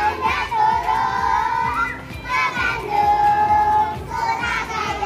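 Children's voices singing a children's song together, phrase after phrase with long held notes, with music.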